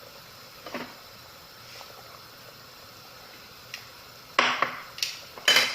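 Kitchen utensils knocking and clattering against a cooking pot, with a few light knocks and then three louder, short clatters in the last second and a half, over a faint steady hiss.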